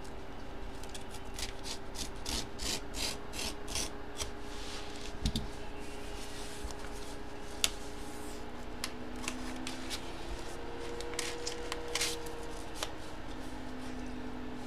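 Hands rubbing and sliding packaging and card holders while a trading-card box is opened, with a quick run of scraping strokes early on and then scattered rustles and clicks.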